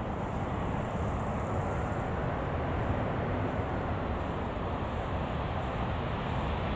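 Airbus A340-300 jet airliner on its landing rollout: a steady rumble of its four CFM56 turbofan engines, growing a little louder as it comes nearer.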